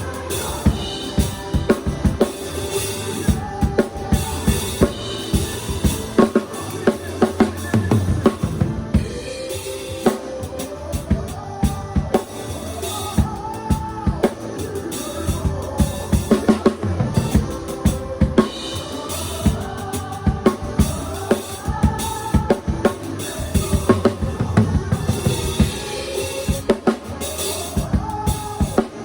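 Drum kit played continuously, with kick drum and snare, over music with a melody line.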